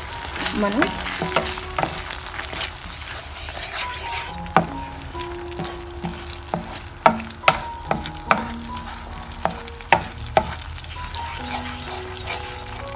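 Thick sauce thickened with cornflour water bubbling and sizzling in a frying pan, stirred with a wooden spatula that knocks and scrapes against the pan now and then, with a few sharper knocks around the middle.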